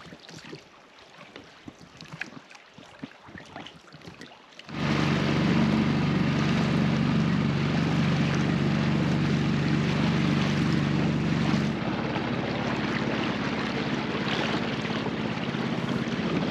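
Dinghy outboard motor running steadily. It comes in abruptly about five seconds in after faint water lapping, and about seven seconds later it drops slightly in level and pitch.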